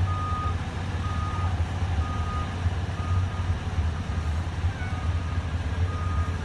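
Fire engine's reverse alarm beeping about once a second, over the steady rumble of its idling diesel engine, as the apparatus backs into the firehouse.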